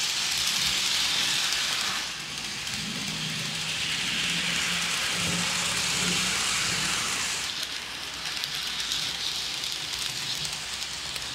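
N scale model train running on track: a steady hiss of small metal wheels rolling over the rails, with a faint low hum under it. The hiss shifts in level about two seconds in and again past the middle.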